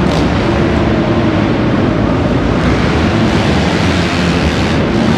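Several motocross bikes racing together on a dirt track, their engines blending into a loud, steady, continuous noise.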